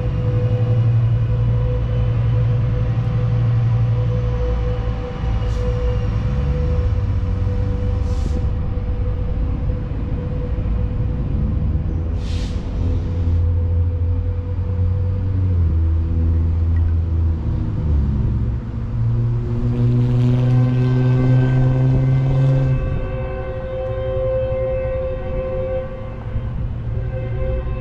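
Background ambient music: sustained low chords that shift every few seconds over a steady held note, with a few soft swells.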